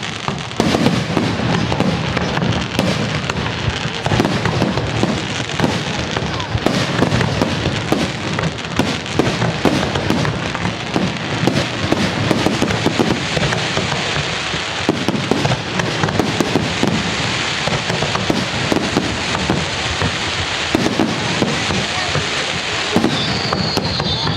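Fireworks display: a dense, continuous crackling and banging of many shells bursting in quick succession, with a few whistles near the end.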